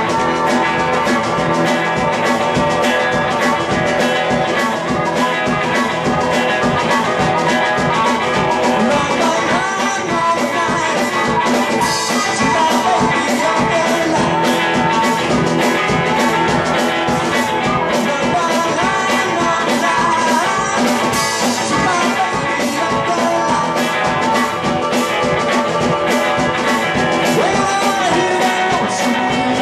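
A live blues band playing an instrumental break: harmonica played through a microphone, bending and wailing over electric guitar and drums keeping a steady beat.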